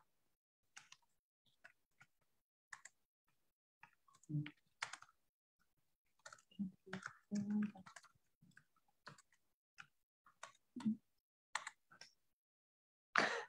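Faint, scattered clicks and taps like computer keyboard typing and mouse clicks, with a few short low sounds in between.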